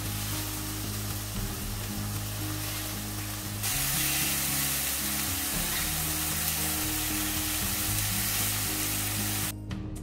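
Slices of tofu sizzling as they fry in oil in a frying pan, a steady hiss that grows louder about a third of the way in and cuts off suddenly near the end.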